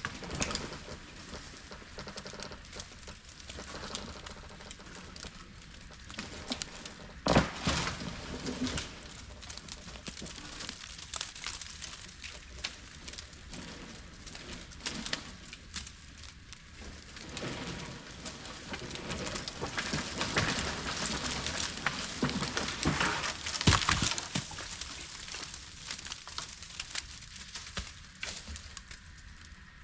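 Dry branches and leaves crackling and rustling, dense with small snaps, as a freshly felled tree and its brush settle. Two loud sharp cracks come about 7 and 24 seconds in.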